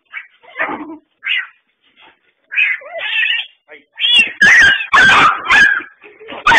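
Cat and dog fighting: high, wavering animal cries, short and scattered at first, then loud and almost continuous from about four seconds in.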